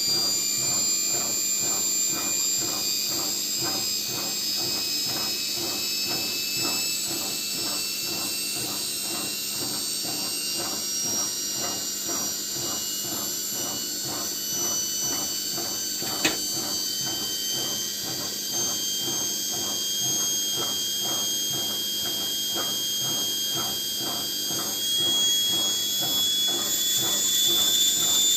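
Washing-machine brushed motor spinning at about 800 rpm while its commutator is ground with a fine abrasive stone. It makes a steady whine that slowly rises in pitch, with a fast, even pulsing, and there is one sharp click about sixteen seconds in. The grinding removes uneven commutator wear so the brushes stop sparking.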